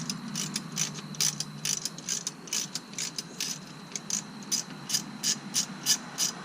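Hand ratchet wrench clicking in a steady rhythm, about three to four clicks a second, as it is worked back and forth to unscrew a brake fastener that has already been broken loose.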